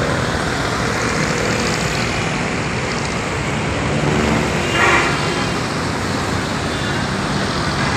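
Road traffic on a wet road: a steady hiss of tyres and rumble of engines as trucks and other vehicles pass. A short horn toot sounds about five seconds in.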